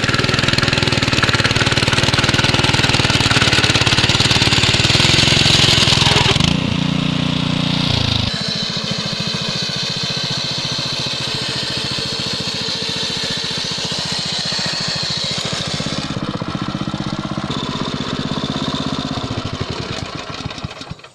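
Small engine of a walk-behind cultivator (mini tiller) running while it works the soil, its tone shifting a few times along the way, then fading out near the end.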